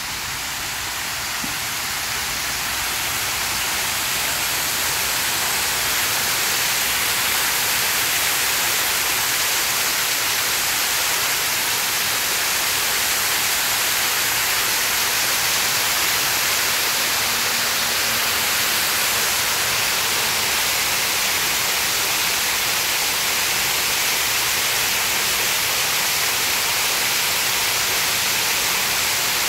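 Steady rush of splashing water from a pond's water feature, swelling over the first few seconds and then holding even.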